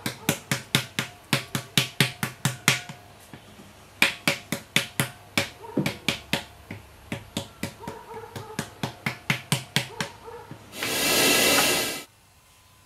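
A flat paddle slapping the wall of a large freshly thrown clay jar in quick, even strokes, about five a second, with a brief pause about three seconds in. The other hand is braced inside as the anvil, shaping and compacting the clay. Just before the end the strokes stop and a second-long burst of hiss follows.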